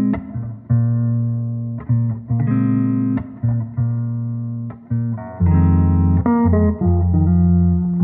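Background music: an instrumental track led by guitar over a bass line, with notes changing about once a second.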